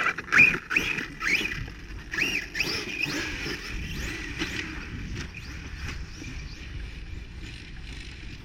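Electric motor of a 6S brushless RC car whining up and down in pitch as the throttle is blipped several times, then running more steadily and fading as the car moves away.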